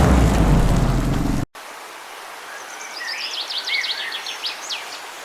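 Dense rumbling traffic noise that cuts off abruptly about one and a half seconds in, then a bird singing a rapid run of high chirps and down-slurred whistles over a steady hiss.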